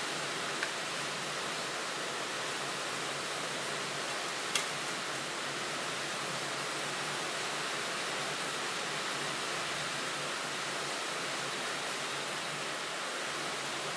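Optimus 8R petrol camping stove burning with a steady hiss from its burner. A single sharp tick sounds about four and a half seconds in.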